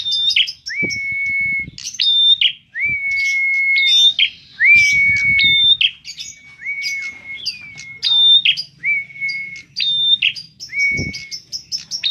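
A caged prenjak (prinia) singing a loud, shrill repeated phrase about once a second: a short high note, then a long whistle that rises and holds steady for about half a second, with quick high ticking notes between phrases. A few dull thumps come from the bird hopping in its cage.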